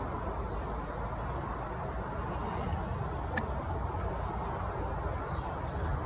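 Steady low rumble of distant traffic. A faint high thin call sounds for about a second a little past two seconds in, and there is one sharp tap just past the middle.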